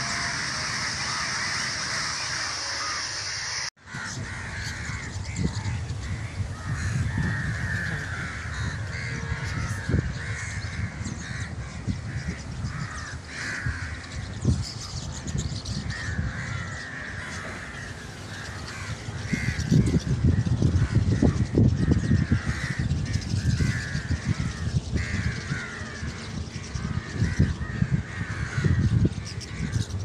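A huge flock of rosy starlings calling all at once, a dense, harsh chatter of many birds. After a brief dropout a few seconds in, a low rumbling noise runs under the calls, loudest about two-thirds of the way through.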